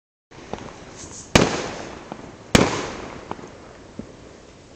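Aerial fireworks bursting: two loud booms a little over a second apart, each trailing off over about a second, with several smaller pops between them.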